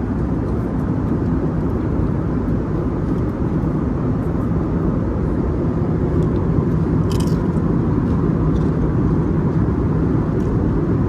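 Steady low roar of the Airbus A321neo's engines and airflow heard inside the passenger cabin in flight. A brief crackle comes about seven seconds in.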